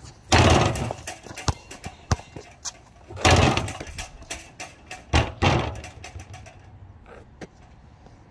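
Basketball slamming into a lowered hoop's rim and backboard three times, each hit setting off a rattling clang of about half a second, with sharp single knocks of the ball bouncing between.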